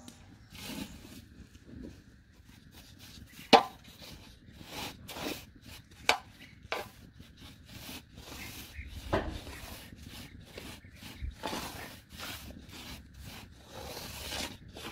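Wooden spoon stirring and scraping dry flour as it toasts in a large aluminium pan, a run of short rasping strokes with a few sharp knocks between them.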